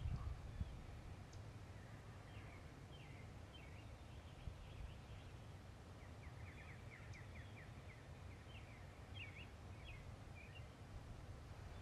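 Quiet woodland ambience: faint songbird chirps come and go, with a rapid trill of short notes partway through, over a steady low rumble.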